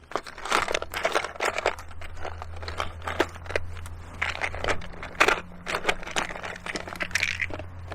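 Close handling noise of fishing tackle: irregular clicks, rattles and rustles as a plastic split-shot box is opened and an SSG shot picked out, over a steady low hum.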